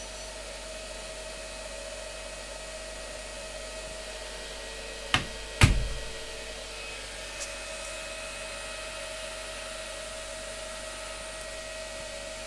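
Whirlpool FSCR 80415 washing machine running with a steady whirring hum and a faint steady tone. Two sharp knocks come about five seconds in, the second the louder with a low thud, then a light tick.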